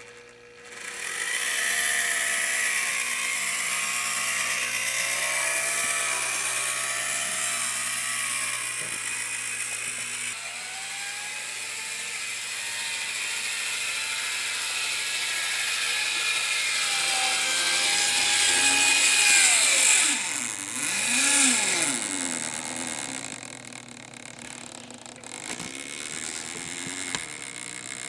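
A Lindbergh HO-scale switcher locomotive running on its track: the small electric motor whirs and the heavily reduced gear train rattles, with a whine that wavers in pitch. The gears, shafts and belts in its drive are worn.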